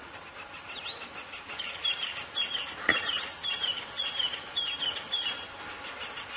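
A bird calling in a repeated series of short chirps, about two a second, with one sharp click about three seconds in.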